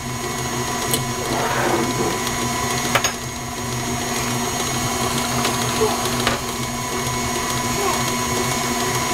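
KitchenAid tilt-head stand mixer running steadily, its beater creaming butter and sugar for cookie dough in the stainless steel bowl, with a few light clicks.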